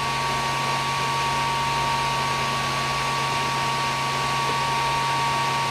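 Creality Ender 3 3D printer running its change-filament routine: a steady fan hum with a constant whine from the extruder stepper motor driving the filament through the hot end and back out.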